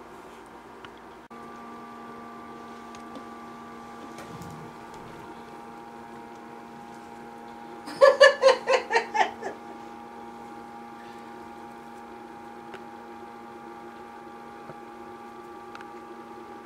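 A person's high-pitched laughter about halfway through: a quick run of about eight 'ha's that fall in pitch over a second and a half. A steady hum of several tones runs underneath.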